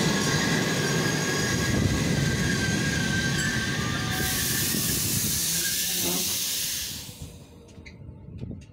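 Passenger coaches of a train rolling past, the wheels rumbling with a steady squeal. A hiss joins about four seconds in, and the noise falls away sharply at about seven seconds, leaving a few faint clicks.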